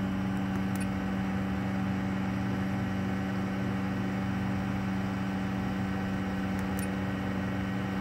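Rheem hybrid heat pump water heater running, a steady mechanical hum with a strong low tone, with two faint ticks as control panel buttons are pressed.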